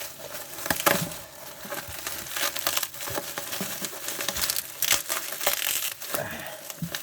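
Plastic bubble wrap being unwrapped and crumpled by hand, with irregular crinkling and sharp crackles.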